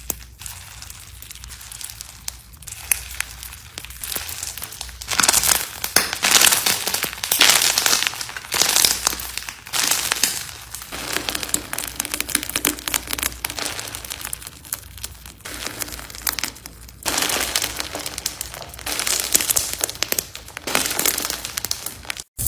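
Slime being squeezed and pressed by hand, giving a dense crackling, crunchy sound that comes in loud stretches of a few seconds with quieter moments between.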